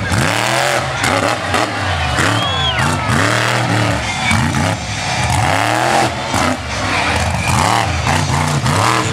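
Monster truck engine revving hard over and over, its pitch sweeping up and dropping back again and again as the truck drives and wheelies.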